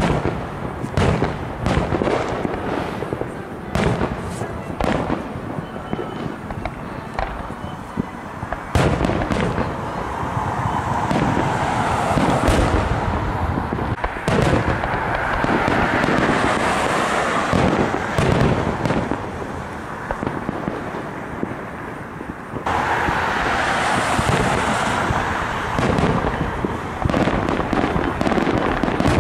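Fireworks display: aerial shells bursting one after another with booms and crackling. The bursts thicken into a near-continuous crackle from about nine seconds in, and again after a sudden rise about three quarters of the way through.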